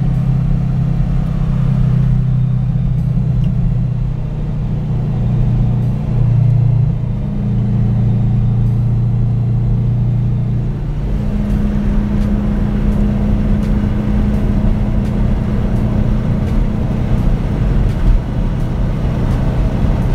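Car engine running under way: a steady low drone whose pitch steps up or down several times, most clearly about eleven seconds in.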